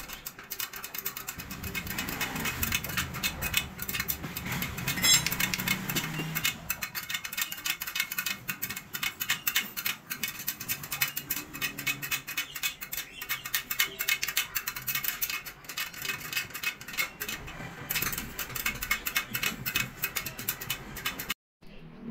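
Dense, rapid metallic clicking and ticking from the spokes of a motorcycle spoked wheel on a truing stand being adjusted with a spoke wrench, with a low hum for the first several seconds.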